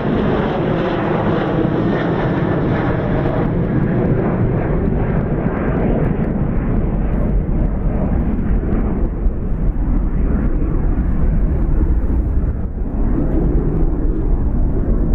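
Boeing 737-800's twin CFM56-7B turbofans at take-off thrust as the jet climbs away: a steady, loud roar that loses its higher hiss over the seconds and leaves a deep, crackling rumble as it recedes.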